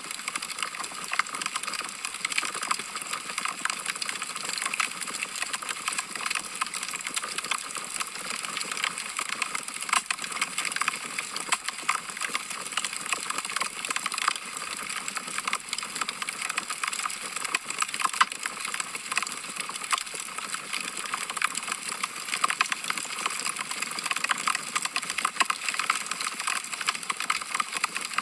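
Wood logs burning in a fireplace, crackling with many quick, irregular sharp snaps over a soft hiss.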